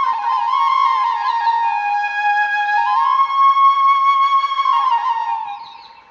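Solo flute melody with long held notes joined by short slides in pitch, fading out near the end.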